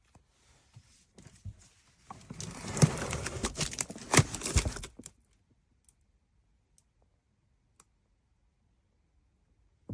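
Clicking and clattering from a portable blender being handled, lasting about three seconds, with two sharp clicks the loudest, then quiet with a few faint ticks.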